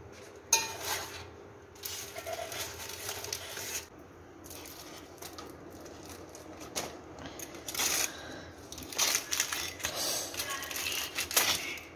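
A metal spatula clinks sharply against a metal steamer pot as a foil-wrapped chicken piece is lifted out. From about 8 s, aluminium foil crinkles and rustles while the parcel is opened on a plate with a fork.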